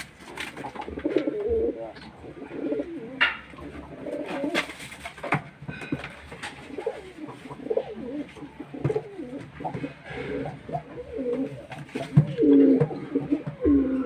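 Domestic pigeons cooing over and over in low rolling coos, typical of a male's courtship display, with the loudest coos near the end. A few sharp taps sound in the first half.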